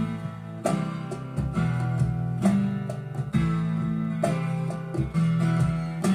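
Recorded song playing: a guitar-led instrumental passage between sung lines, with strummed chords struck about once a second.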